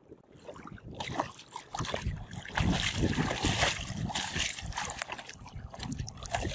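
River water splashing and sloshing against the side of a wooden boat as a hand line is hauled in and a hooked pufferfish is drawn to the surface, starting about a second in with irregular splashes.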